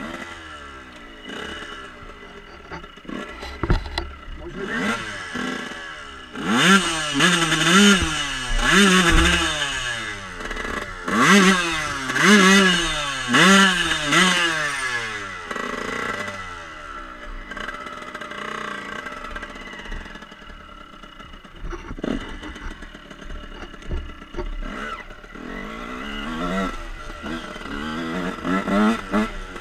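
Dirt bike engine revving hard, its pitch climbing and dropping back over and over through the middle of the clip as the rider accelerates, then running at lower, steadier revs near the end.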